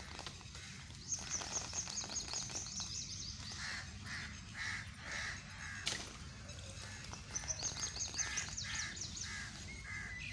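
Birds calling: a fast, high twittering comes twice, and between and under it runs a series of short, harsh caws about two a second.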